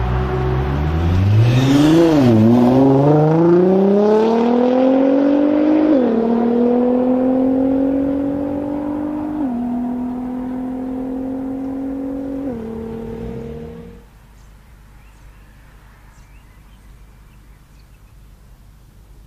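Stage 2-tuned Nissan R35 GT-R with an HKS exhaust, its twin-turbo V6 accelerating hard and shifting up several times, the pitch dropping sharply at each shift. The engine sound cuts off about fourteen seconds in.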